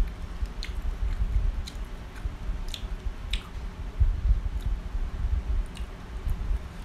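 Close-miked chewing of fried grasshoppers, with small sharp crackles about once a second over a low, uneven rumble.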